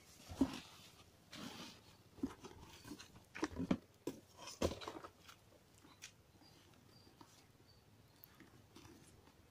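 Rustling, crinkling and soft knocks as a new full-face motorcycle helmet is handled and freed from its cloth dust bag and cardboard box. There are a few sharp bursts in the first half, then only faint handling.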